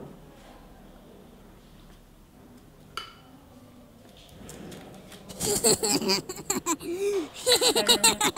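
A person's voice, loud and broken into quick pulses that waver in pitch, starting about five seconds in. Before it, one soft click about three seconds in.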